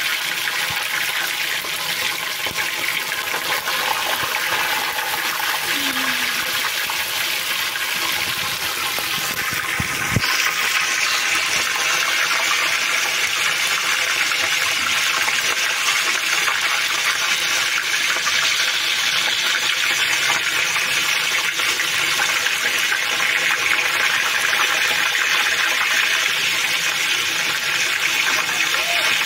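Fish pieces deep-frying in hot oil in a karahi: a loud, steady sizzle. About ten seconds in there is a knock, and the sizzle grows louder and brighter after it.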